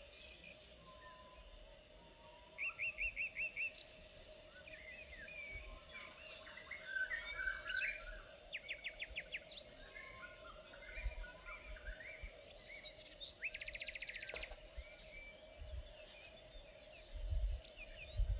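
Several songbirds calling: chirps, a run of quick repeated notes and fast trills. A faint steady hum lies underneath, with a few low rumbles near the end.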